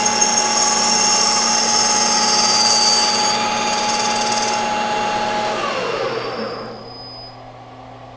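Aluminium hard-drive platter ringing with several high, steady tones as a lathe tool takes a facing cut across it on a PM1440BV metal lathe. The ringing dies out about five seconds in, then the lathe spins down with a falling pitch, leaving a low hum.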